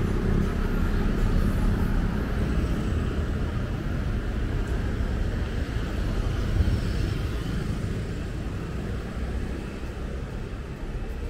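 Busy street traffic: a steady low rumble of passing vehicle engines that slowly fades away.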